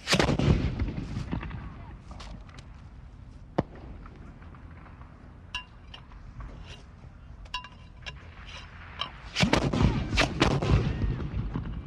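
Several rifles firing on a range: a rapid burst of overlapping shots at the start, a few scattered single shots, then a second dense volley about nine and a half seconds in, the shots echoing.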